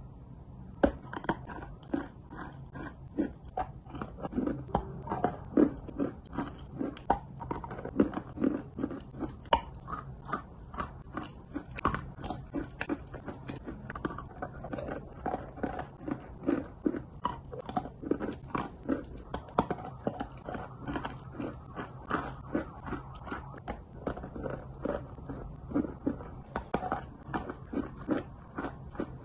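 Biting and chewing a block of chalk coated in a brown paste, close to the microphone: a steady run of dry crunches, about two a second, beginning about a second in.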